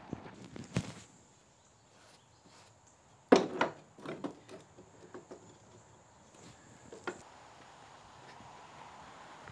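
Sharp metal clanks and knocks from handling the steel mower deck of a lawn tractor and its parts, the loudest about three seconds in, followed by a few smaller knocks. After one last knock near seven seconds, only a soft outdoor hush remains.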